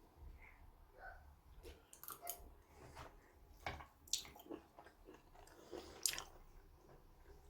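Close, wet chewing and biting with irregular sharp crackles, the loudest about four and six seconds in.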